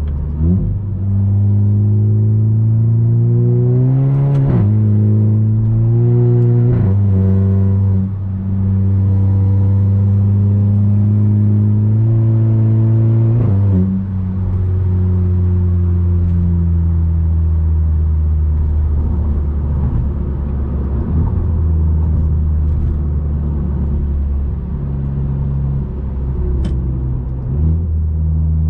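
Audi A3 8P 2.0 TFSI turbocharged four-cylinder with 2.5-inch downpipe and catback exhaust, heard from inside the cabin under acceleration. The engine note climbs and drops sharply at upshifts about 4.5, 7 and 14 seconds in, each with a brief sharp burst from the exhaust, then settles into a steady cruising drone.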